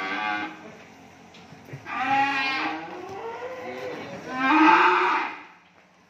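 Belgian Blue (BBB) crossbred cattle mooing: one call trails off at the start, then two more follow about two seconds and four and a half seconds in, the last the loudest.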